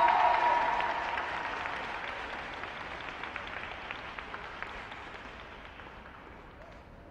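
Scattered applause from a small crowd of spectators, loudest at first and dying away over several seconds. The last note of the programme music fades out just as the clapping begins.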